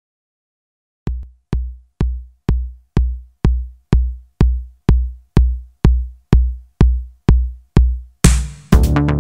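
Electronic dance music intro: a lone kick drum beating evenly about twice a second, then a short rushing swell and the full track coming in near the end.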